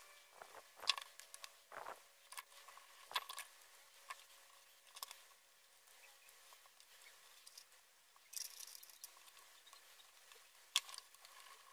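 Scattered faint clicks and taps of a small carbon-fibre quadcopter frame and its wires being handled and fitted, with a short rustle about eight seconds in and a sharper click near the end.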